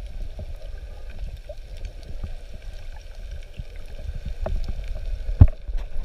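Underwater sound picked up by a camera in its waterproof housing: a steady low rumble of moving water with scattered small clicks and knocks. A louder knock comes near the end.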